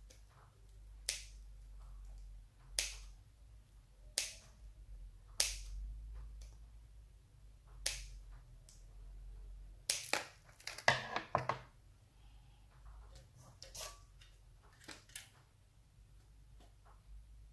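Scissors snipping through metal rhinestone chain trim: sharp single clicks a second or two apart, with a quicker run of clicks about ten seconds in.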